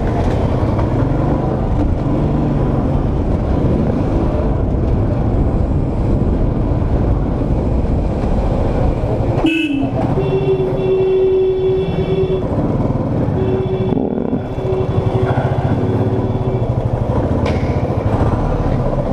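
Motorcycle engine running underneath as the bike rides along, with a vehicle horn sounding two long blasts near the middle, about two and a half and three seconds each.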